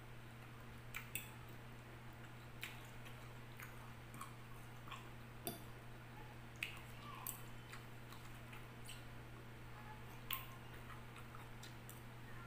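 Metal fork clicking against a glass bowl as it picks up vegetable salad, with quiet chewing; about a dozen short, sharp clicks at irregular intervals over a steady low hum.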